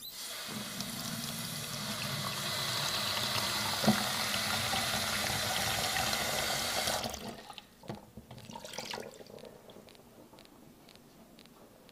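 Tap water running into a bowl to fill it, growing a little louder as it runs, with one sharp knock partway through; the flow shuts off abruptly about seven seconds in, followed by a couple of small knocks.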